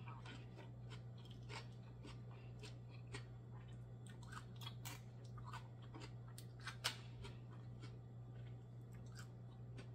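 Close-miked mukbang eating sounds: chewing black mussels, with many short, sharp mouth and shell clicks as a mussel is pried open by hand; the loudest click comes about seven seconds in. A steady low hum runs underneath.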